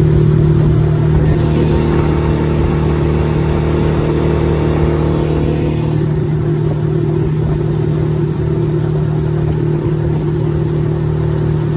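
Suzuki DF6A 6 hp single-cylinder four-stroke outboard motor running steadily under way, with water and wind hiss. It is drawing fuel from an external tank and runs fine with no issues.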